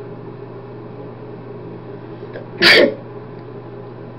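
A man sneezing once, a short loud burst about two and a half seconds in, with his mouth covered by one hand, over a steady low hum.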